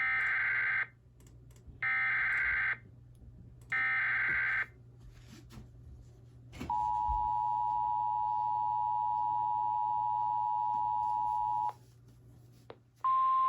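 Emergency Alert System header for a flood warning: three short bursts of SAME data tones about two seconds apart, then the two-tone attention signal held steady for about five seconds. Near the end a single steady 1050 Hz weather-radio alert tone begins.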